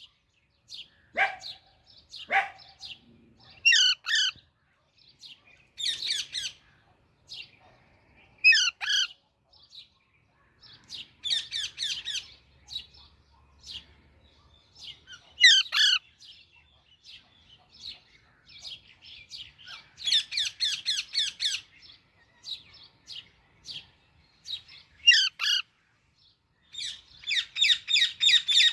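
Baby Alexandrine parakeet calling: single harsh squawks every few seconds, broken three times by longer runs of rapid chattering calls.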